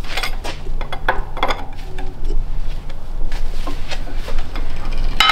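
Shop press with a hydraulic bottle jack being worked to press a wrist pin through a piston and connecting rod. Its handle and the steel parts give scattered metal clicks and knocks, then one loud ringing metallic clank near the end.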